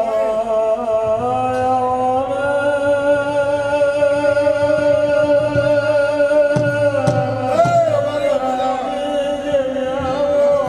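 A man singing a devotional dhun, holding long sustained notes that step up in pitch about a second and a half in and waver briefly about three-quarters of the way through.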